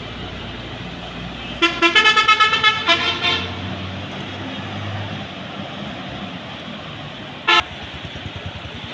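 Vehicle horn honking in a quick run of short beeps for about two seconds, then one short beep near the end, over steady background noise.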